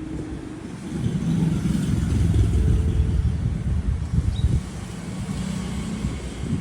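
A motor vehicle passing: a low engine rumble that swells about a second in, is loudest around the middle and eases off near the end.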